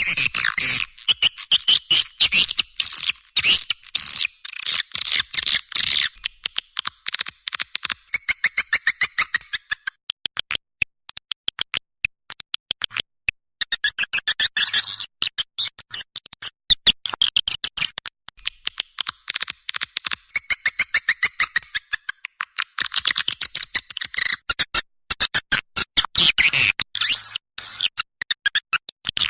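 Recorded swiftlet calls, played as a lure: rapid, high twittering chirps in bursts several seconds long, with short sparser gaps between them.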